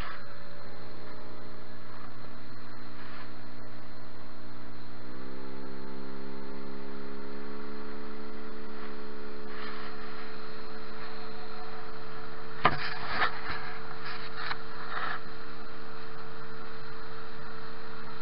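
Tohatsu outboard motor running steadily with the boat underway. Its drone steps up in pitch about five seconds in and holds there. A few sharp knocks come about two-thirds of the way through.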